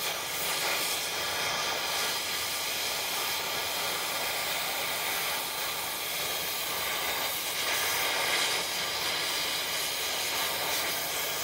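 Oxy-fuel cutting torch flame hissing steadily as it heats a bolt on a dirt pan's cutter blade red hot, to burn the rust off and free the bolt for removal.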